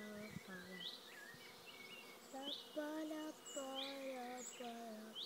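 Bees buzzing as they fly close past, each buzz lasting about half a second and sliding in pitch. Behind them a bird repeats a short rising chirp about once a second.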